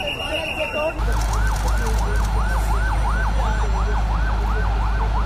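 Voices for about the first second, then an emergency vehicle's siren in a fast yelp, rising and falling a little over twice a second, over a steady low rumble.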